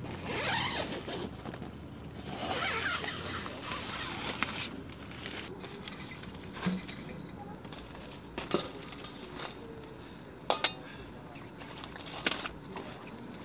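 Rustling of a nylon tent and a few short, sharp knocks as gear is pushed in and set down on the tent floor. A steady, high insect drone runs underneath throughout.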